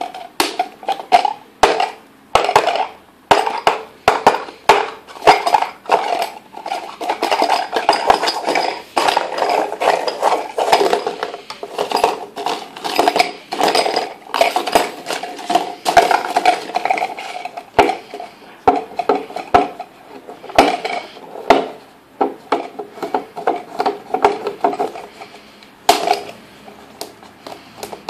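Paper coffee cup with a balloon stretched over its mouth like a drumhead, played with the fingers: irregular taps, flicks and rubs on the rubber and the cup. A steady stream of sharp clicks and knocks runs together with scraping and a recurring mid-pitched hollow tone.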